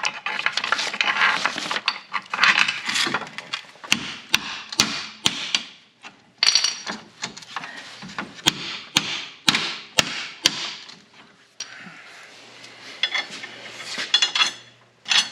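Loose bolts and metal hardware from a parts bag being handled and sorted: rustling and rattling, with runs of sharp metallic clinks about four seconds in and again after eight seconds.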